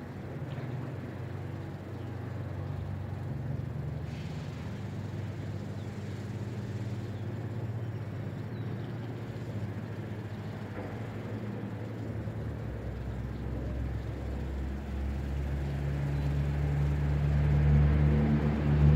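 An engine running steadily, growing louder over the last several seconds.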